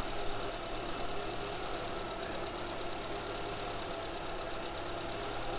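Suzuki Samurai's engine idling steadily.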